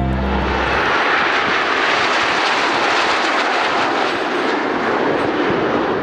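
Formation of Aermacchi MB-339 PAN jet trainers passing overhead, their Rolls-Royce Viper turbojets making a steady, loud rushing jet noise. A music track cuts out within the first second.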